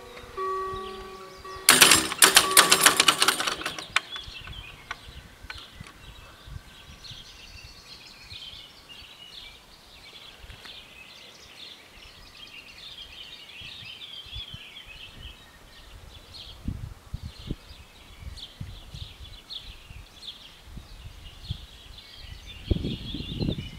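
A level-crossing warning bell rings in steady tones, cut off about two seconds in by a loud clattering burst lasting about two seconds. Then birds sing for the rest of the time, and a low rumble starts near the end.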